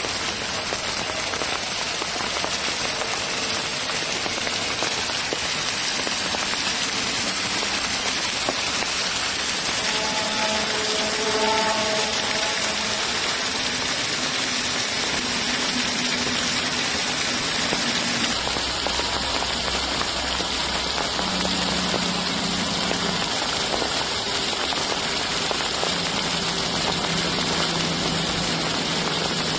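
Floodwater rushing and splashing over rocks in a small stream, a steady loud rush. About two-thirds of the way through the sound changes abruptly to a duller, lower rumble with less hiss.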